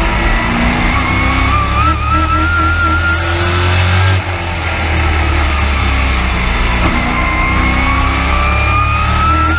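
Race truck engine at racing speed, heard from inside the cab. It climbs in pitch for about four seconds, drops off sharply, then winds up again from about seven seconds in.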